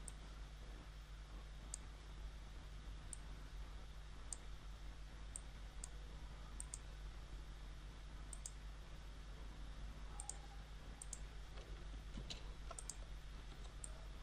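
Computer mouse clicking now and then at irregular intervals, faint, over a steady low hum.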